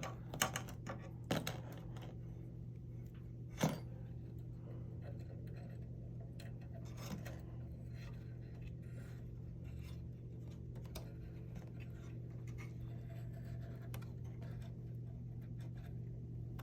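A few small sharp clicks and taps of thin wires and small parts being handled, most of them in the first four seconds, over a steady low hum.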